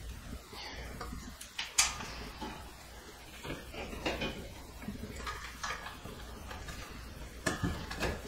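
Irregular plastic clicks, knocks and rustling from the LED wafer downlight's junction box being handled and pushed up into the ceiling hole. The sharpest knock comes about two seconds in.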